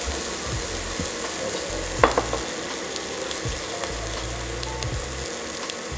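Brussels sprouts sizzling and crackling in a Vermicular enameled cast-iron pot, browned at the end of a steam-roast. A few sharp clicks stand out over the steady sizzle, the loudest about two seconds in.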